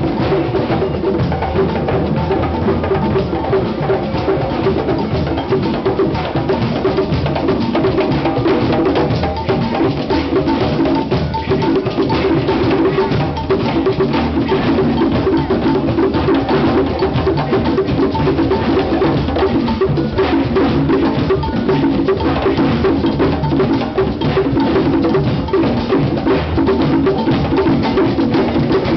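A drum circle of congas and djembes playing together in a dense, unbroken rhythm, with sharp clicks over the drums.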